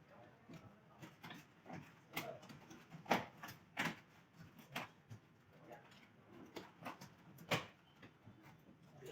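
A series of irregular sharp clicks and knocks, about one every second or so, with the loudest about three seconds in, four seconds in and near the end.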